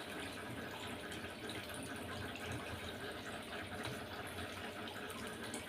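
Faint steady background hiss, a low room noise with no distinct events.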